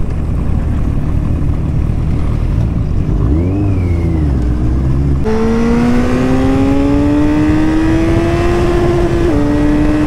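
Motorcycle engine heard from the rider's seat over wind rush. A short rev rises and falls about three and a half seconds in; then, after an abrupt jump in the sound, the engine pulls steadily higher in pitch under acceleration, drops with an upshift near the end and runs on as the revs ease off.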